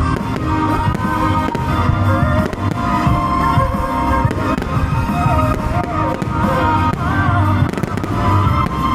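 Fireworks bursting again and again, the sharp bangs coming in close succession, over music with steady sustained tones.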